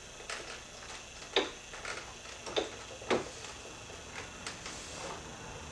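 Controls of a small portable cassette recorder clicking as they are pressed and worked, about eight sharp mechanical clicks at irregular spacing, two of them louder than the rest. The recorder refuses to go into record.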